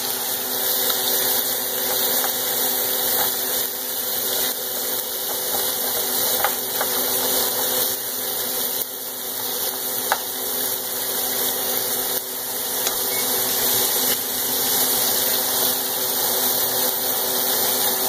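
Ground beef sizzling steadily in olive oil in a hot frying pan, with a few light taps of a plastic spoon against the pan as the meat is broken up, over a steady hum.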